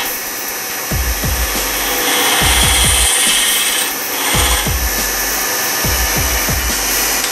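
Wood lathe running while a hand-held turning tool cuts into the end of a spinning ash blank, hollowing a recess: a steady scraping cutting noise that dips and returns as the tool's pressure changes.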